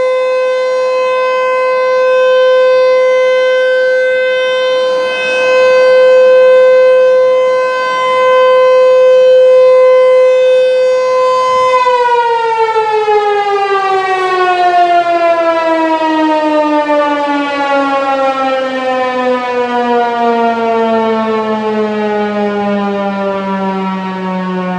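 American Signal T-128 electromechanical tornado siren sounding a steady single-tone alert, its loudness swelling and fading every few seconds. About twelve seconds in the alert ends and the siren winds down, its pitch falling slowly and smoothly.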